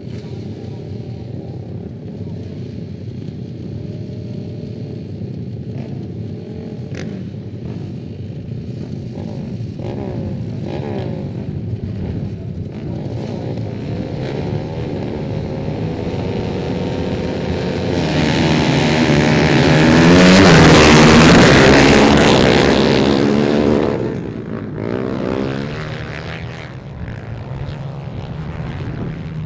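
Ice-racing motorcycles on screw-studded tyres idling together on the start line, then revving hard as the pack launches. They are loudest for several seconds a little past the middle, then fall away to a steadier running note.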